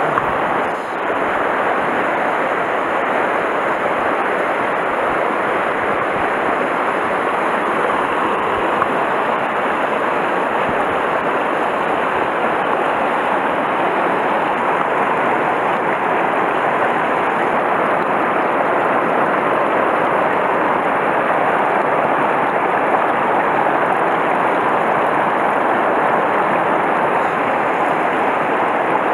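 River water rushing over rocks in a shallow riffle: a steady, unbroken noise.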